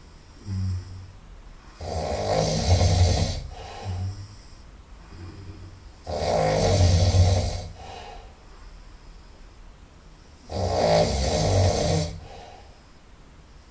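A person snoring loudly through the nose: three long snores about four seconds apart, with a shorter, fainter breath sound between each.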